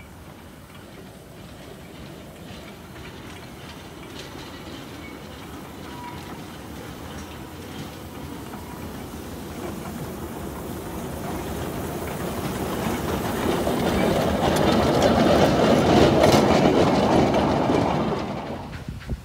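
Small narrow-gauge steam locomotive running towards and past close by, its wheels clattering on the track. It grows steadily louder, is loudest near the end, then drops away suddenly.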